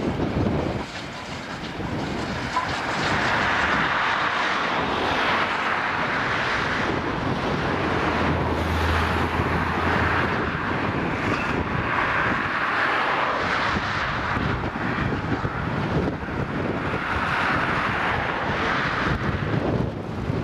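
Gusting wind buffeting the microphone, rising and falling every few seconds, over the sound of a steam locomotive working a passenger train past at a distance.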